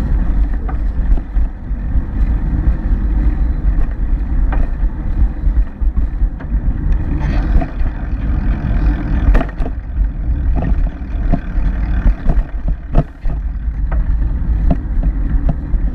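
Low wind rumble and riding noise picked up by a bicycle-mounted camera rolling along a concrete sidewalk, with irregular short knocks and rattles from the bike every second or two.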